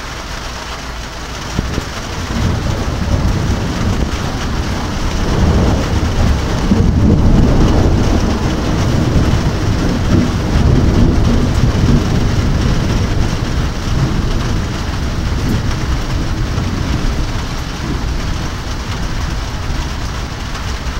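Steady rain with a long rumble of thunder that builds from about two seconds in, is loudest in the middle and slowly dies away.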